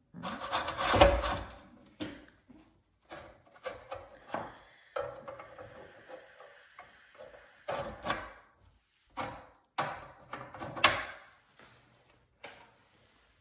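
Irregular knocks, scrapes and clunks of objects being handled and set down, coming in a dozen or so separate bursts, the loudest about a second in and again near the end.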